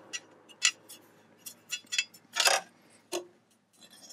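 A string of irregular sharp clicks and taps, the loudest about two and a half seconds in, from the metal engine guard being handled and pressed onto its rubber-grommet mounts.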